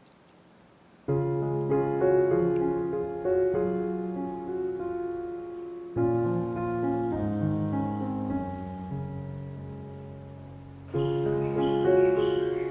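Soft solo piano background music. Slow chords with a melody start about a second in, and a new phrase is struck about every five seconds.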